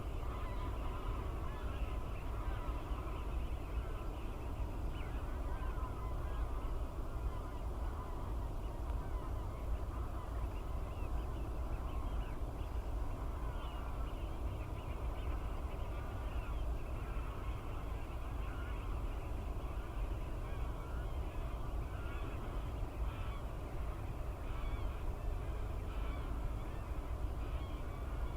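A large winter flock of wild geese and other waterfowl on a marsh, calling over one another without pause, many calls overlapping. A steady low rumble of wind on the microphone lies beneath.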